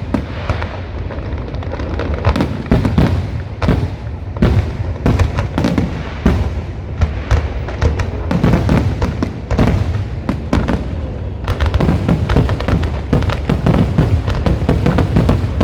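Fireworks bursting in rapid, overlapping bangs and crackles, growing denser in the last few seconds, with music playing underneath.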